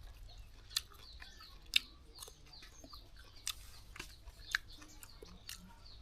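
Crisp crunching and chewing of raw young jackfruit, with sharp crackles about once a second. Birds chirp faintly behind it.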